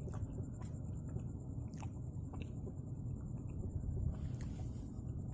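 Hands handling a small fish and fishing line on a concrete floor: a few sharp little ticks and scrapes spread through, over a low steady rumble.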